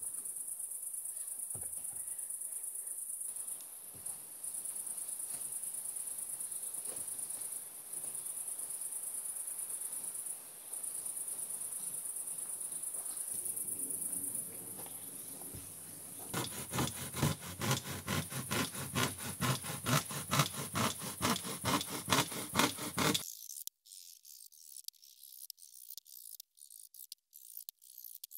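Crickets chirping steadily in the dark, with a few short gaps. About two-thirds of the way through, a regular run of strokes, about two a second, comes in for several seconds and is the loudest thing, then stops abruptly.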